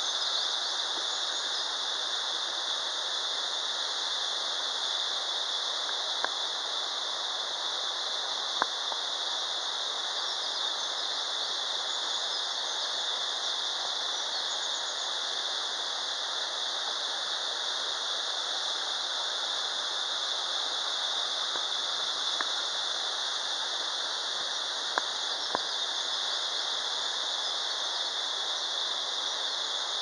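Steady rushing of a 70 m straight-drop waterfall and the rocky stream below it, an even hiss with a bright high edge. A few faint clicks now and then.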